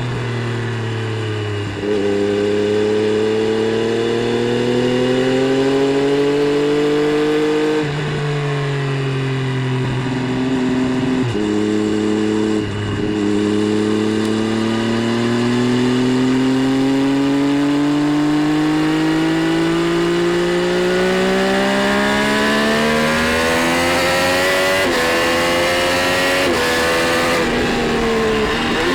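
Triumph Street Triple 765 RS inline three-cylinder engine at full speed on track, revs climbing through the gears with sudden pitch steps at each gear change. A long climb in the middle is followed by several quick gear changes near the end.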